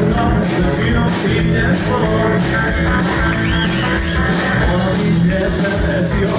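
A live band playing upbeat music with guitars over a steady drum beat.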